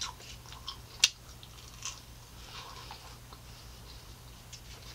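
Close-up mouth sounds of a person chewing pizza crust: soft, wet smacks and small clicks, with one sharp click about a second in.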